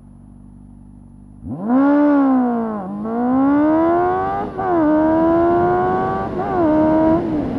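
Honda CB400's inline-four engine with an aftermarket Ixil exhaust accelerating hard from about a second and a half in, the revs climbing and then dropping at each of four quick upshifts.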